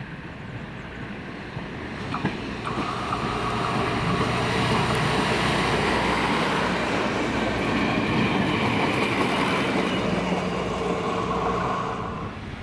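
Vintage diesel railbus train (M131.1443 'Hurvínek' and 810.160 railcar with trailer cars) passing close by: engine and wheel-on-rail noise with a few steady tones, growing louder as it approaches, holding loud while the cars go by, and falling away near the end.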